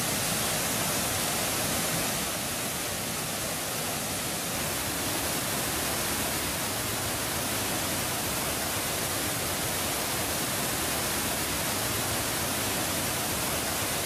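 Waterfall in flood: a steady, loud rush and roar of high water pouring over the falls and weir.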